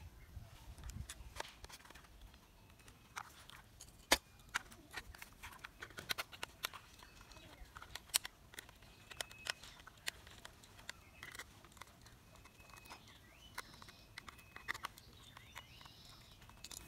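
Scattered plastic clicks and taps as a toy cement mixer truck is handled and screws are driven into its plastic underside with a small screwdriver, with one sharper knock about four seconds in.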